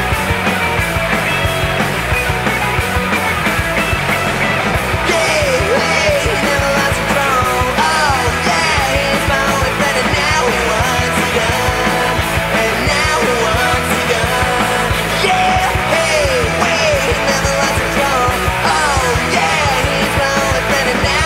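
Fast rock music soundtrack with a steady drum beat and guitars; a sliding melodic line comes in about five seconds in.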